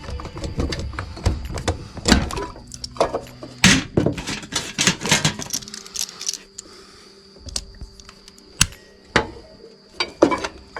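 Hand tools and small metal parts clinking and knocking as the carburetor is removed from a push mower: an irregular run of sharp clicks and clatters.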